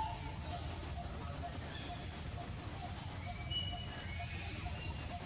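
Forest ambience: a steady high-pitched insect drone, with a short note repeating about twice a second. A few brief bird-like chirps come about three to four seconds in.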